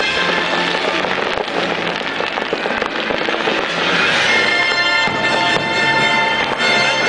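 Fireworks bursting and crackling over loud fireworks-show music with sustained notes.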